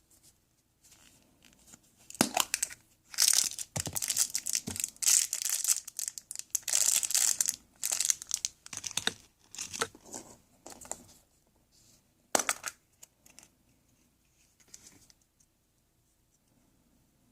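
Packaging being torn open and crinkled by hand, in a run of irregular ripping and rustling bursts, with a few fainter rustles near the end.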